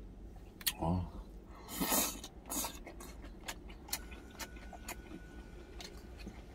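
Close-up mouth sounds of a person chewing a big mouthful of spicy stir-fried pork: a brief voiced 'mm' about a second in, a breathy rush of air near two seconds, then scattered wet smacking clicks.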